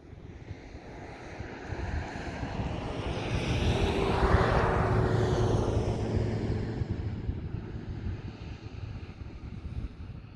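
An aircraft passing overhead: its engine noise swells, peaks about four seconds in and slowly fades away, with a steady low hum through the loudest part. Wind buffets the microphone throughout.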